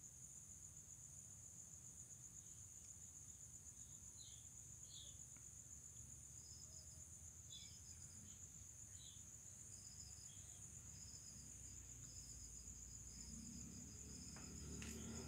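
Faint chorus of night insects: a steady, pulsing high trill, joined from about four seconds in by short higher chirps. A low rumble builds near the end.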